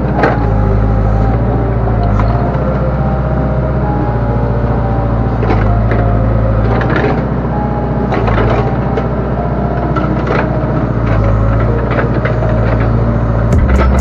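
Backhoe loader's diesel engine running under hydraulic load, heard from the operator's seat, its note rising and falling as the boom and bucket are worked. Several short knocks and clanks break in.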